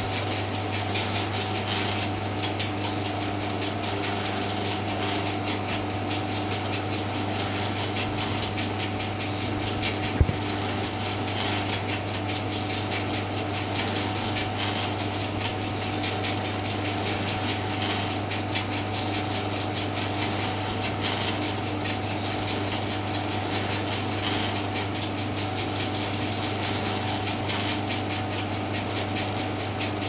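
Rolling shutter motor running continuously, a steady electric hum with a mechanical whir from its gearing as it turns the limit-switch screw. One short click about a third of the way through.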